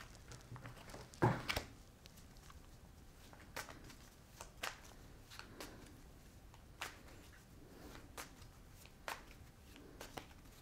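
Tarot cards being shuffled by hand: quiet, scattered card flicks and taps, with one louder one a little over a second in.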